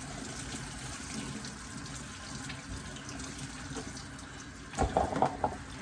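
Kitchen faucet running steadily as water fills the drum magazine of an electric toy water gun. A few short handling knocks about five seconds in.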